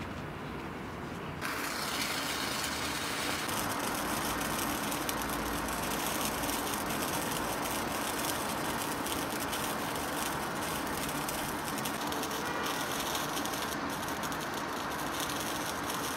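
A lit wire sparkler fizzing and crackling steadily as it burns down its wire. The fizz starts loud about a second and a half in.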